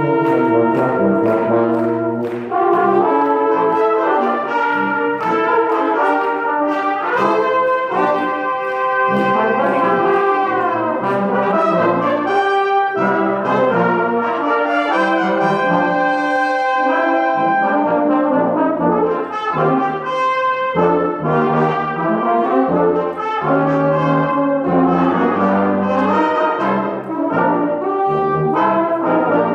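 A brass ensemble plays in several parts, with many notes changing throughout. About ten seconds in there is a downward slide in pitch.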